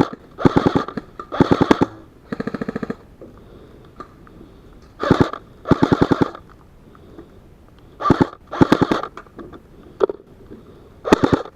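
Airsoft guns firing in short full-auto bursts, about eight bursts of rapid shots less than a second each, with a single shot near the end.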